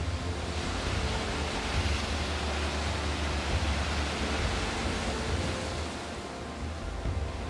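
Sea surf washing and foaming against the foot of a rocky cliff, a steady rushing hiss that swells in the middle and eases near the end, with a low rumble of wind on the microphone underneath.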